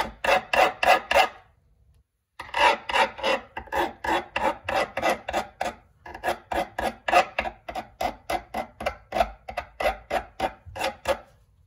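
Hand file rasping in quick back-and-forth strokes, about three a second, on the freshly cut end of a 2 mm bicycle spoke, filing off the burr left by the cut. The filing pauses briefly about a second in, then runs on steadily and stops just before the end.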